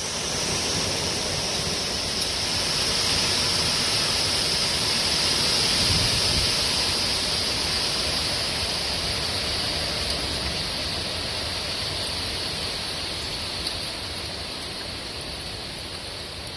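Steady rushing noise of hurricane-force wind and driving rain. It swells over the first few seconds and then eases slowly.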